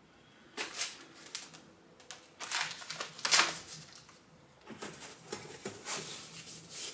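Flat cardboard parts boxes and packaging being handled and stacked: irregular rustles, scrapes and light knocks in a few bursts.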